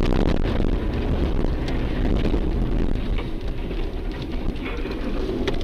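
Steady road noise of a car driving on a wet, slushy highway, heard from inside the car: a low rumble with tyre hiss and a few faint ticks.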